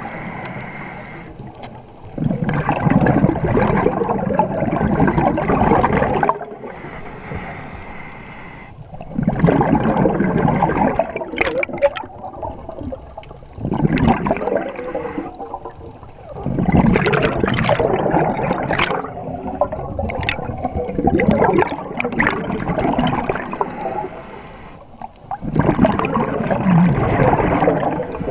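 Scuba diver breathing through a regulator underwater: six bursts of exhaled bubbles, one every four to five seconds, with quieter stretches between and a few sharp clicks in the middle.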